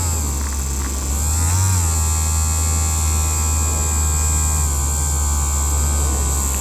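Small battery-powered handheld vibration machine running with a steady electric buzz. Its pitch wavers during the first two seconds, then holds steady.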